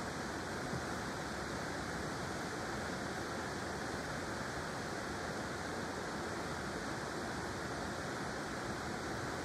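Steady rush of flowing river water, an even unbroken hiss.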